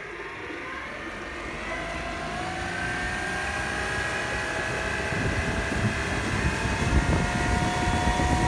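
Stealth E40 40 hp all-electric outboard motor whining as the boat accelerates, the whine climbing slowly in pitch and growing louder. Rushing water and wind buffeting on the microphone build from about halfway in.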